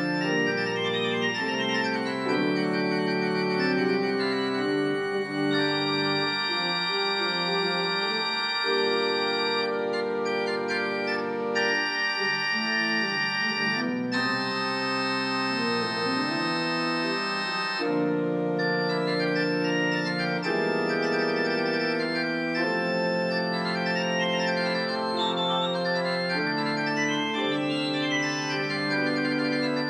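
Organ playing alone in slow, held chords that change every second or two, growing brighter in places as higher tones are added.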